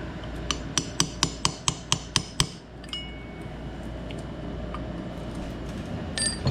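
Hammer tapping a steel punch to drive out a retaining clip in a Suzuki DR650's clutch, about nine quick sharp strikes over two seconds. They are followed by a brief metallic ring and, near the end, a light clink.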